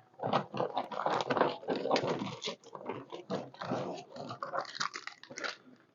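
Plastic ration-pack packets crinkling and rustling as they are handled, in irregular bursts.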